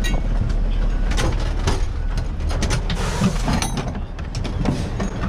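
Fire engine's diesel rumbling low while gear and the cab door click and knock as a firefighter climbs out of the crew cab, with a short hiss about three seconds in.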